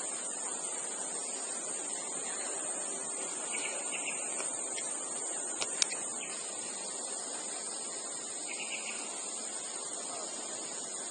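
Steady outdoor hiss with a continuous high-pitched drone, a few faint short chirps, and one sharp click about six seconds in.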